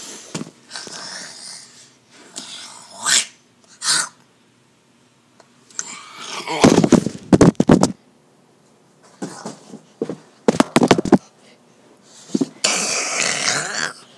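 Handling noise on the camera's own microphone as it is grabbed and thrown: irregular knocks, thuds and rubbing. The loudest cluster comes about halfway through, with more sharp knocks a few seconds later, a couple of short breathy bursts early on, and a long scraping, rustling stretch near the end.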